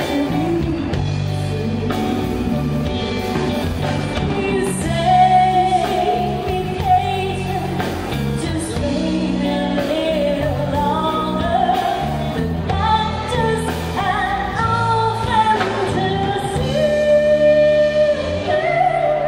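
Live band playing a pop ballad: female vocals sung into microphones over electric and acoustic guitars, drum kit and keyboard.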